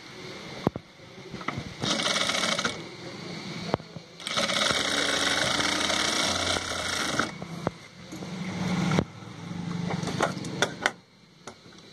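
Industrial sewing machine stitching down a folded hem in short runs: a brief burst about two seconds in, then a longer run of about three seconds. Between runs come quieter clicks and the cloth being handled.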